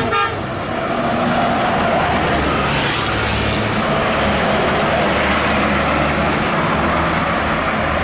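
Two intercity coaches drive past close by, one after the other. Their diesel engines rumble and their tyres hiss on the road, loudest midway as the second coach goes by, and a vehicle horn sounds.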